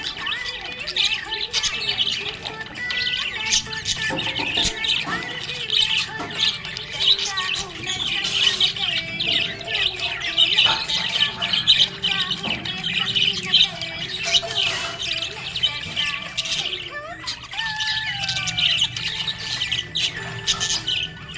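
Budgerigars chirping and squawking continuously: many quick, overlapping calls from several birds at once.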